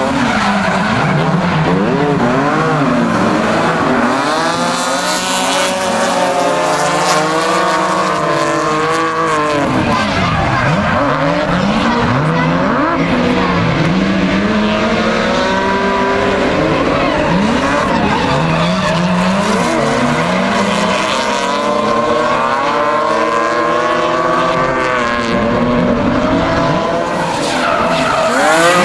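Drift cars' engines revving hard, their pitch rising and falling over and over as the cars are thrown sideways, with tyres squealing and scrubbing on the track.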